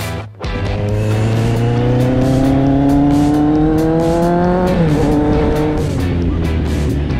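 Kawasaki Z800's inline-four engine accelerating on the road, its pitch rising steadily for about four seconds, then dropping sharply at an upshift and running on more evenly.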